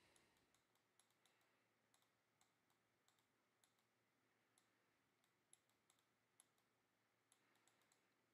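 Near silence, with faint scattered clicks.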